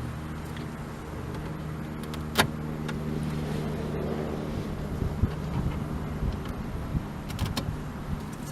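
Plastic trunk trim tabs being pressed back into place: one sharp click about two and a half seconds in, handling knocks, and a few fainter clicks near the end, over a steady low hum.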